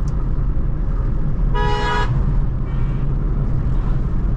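Steady low rumble of a Maruti Suzuki S-Presso's engine and road noise while driving. A vehicle horn honks once for about half a second, about a second and a half in, and a fainter short honk follows about a second later.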